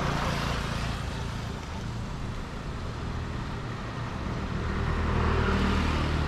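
Road traffic passing on a street, with a vehicle engine growing louder over the second half.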